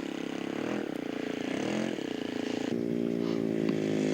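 Engine of a radio-controlled scale Curtiss Jenny model airplane running, its pitch sliding up and down with the throttle, then changing abruptly about two and a half seconds in to a louder, steady note.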